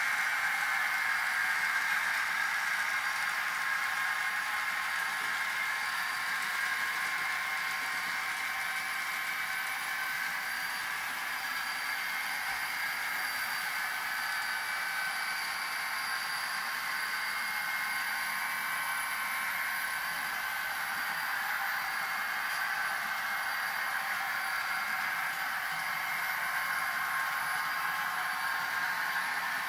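N scale model train with DCC sound running: a steady, even hiss with a few faint steady tones through it and no clear beat.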